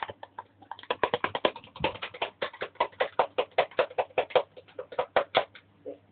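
Spoon beating raw eggs with chopped onion and spices in a glass, clinking against the glass in quick strokes, about eight a second, then stopping near the end.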